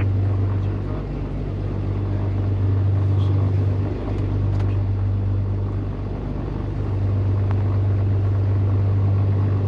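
Twin piston engines of a Beechcraft G58 Baron running at idle: a steady, even drone.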